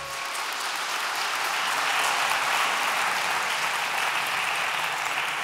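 Audience applauding as the dance music stops. The clapping builds over the first couple of seconds and then holds steady.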